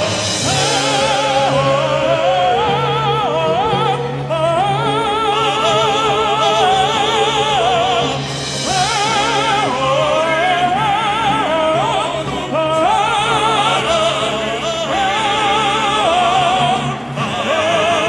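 Male vocal quartet singing in an operatic style, several voices in harmony with strong vibrato on held notes, over a sustained instrumental accompaniment.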